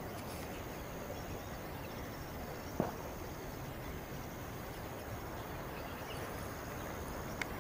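Steady outdoor background noise, with a thin high whine that comes and goes in long stretches. A single knock sounds about three seconds in, and a small click near the end.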